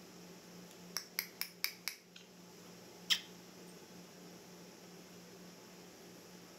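A pet parrot making short, sharp clicks: a quick run of five about a second in, then a single one about two seconds later. A faint steady hum lies underneath.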